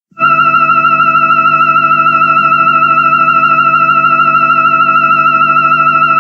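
Electronic Mechani-Kong robot sound effect: a loud, steady high tone with a low hum under it, warbling and pulsing rapidly. It starts suddenly just after a silence.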